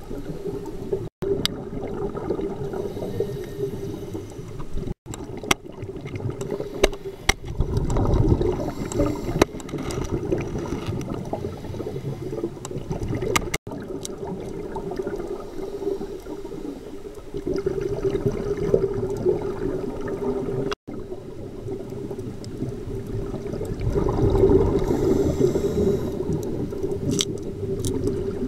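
Underwater sound of a scuba dive: bubbly, gurgling water noise that swells every several seconds, as a diver's exhaled bubbles would, over a steady low hum, with scattered sharp clicks. The sound cuts out completely for an instant four times.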